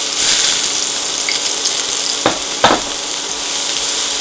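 Diced onion sizzling steadily in hot oil in a nonstick frying pan as more onion is added and stirred with a silicone spatula, with two short knocks a little past two seconds in.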